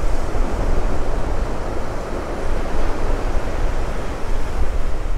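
Ocean surf breaking and washing up the beach, a steady hiss, with wind buffeting the microphone as a low rumble.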